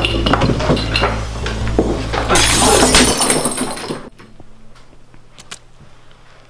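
Close scuffling, then a glass bottle smashing and shattering loudly about two and a half seconds in. Quieter rustling follows from about four seconds in.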